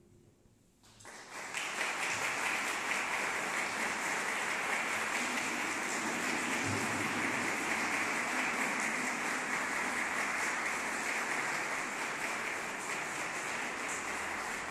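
Audience applauding: the clapping starts about a second in and keeps up steadily.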